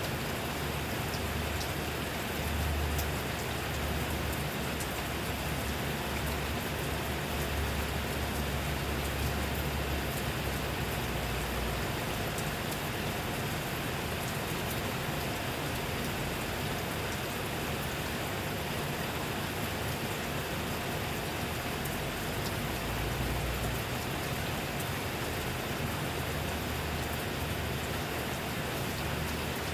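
Steady rain falling, an even hiss with scattered raindrop ticks. A low rumble sits underneath, strongest in the first ten seconds or so.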